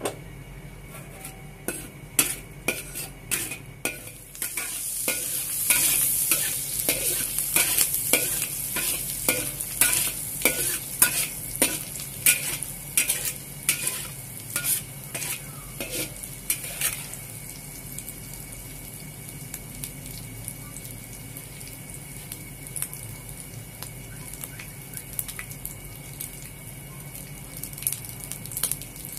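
Stir-frying in a wok: a metal spatula scrapes and knocks against the pan in quick strokes while dried shrimp and other food sizzle in hot oil. The sizzle grows louder about four seconds in, and the rapid strokes stop a little past halfway, leaving a quieter steady sizzle with an occasional tap.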